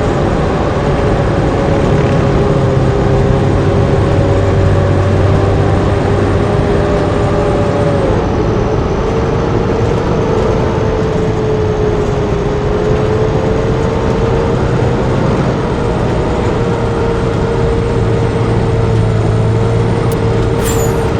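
Blue Bird D3FE school bus running steadily, its engine and drivetrain droning under road noise. A whine shifts down in pitch about eight seconds in.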